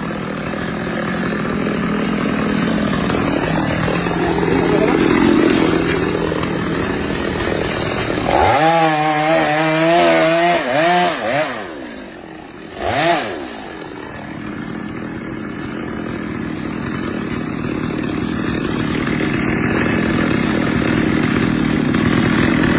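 Chainsaw running steadily; about eight seconds in its engine pitch wavers up and down for a few seconds, drops away briefly, then gives one short rev before settling back to a steady run.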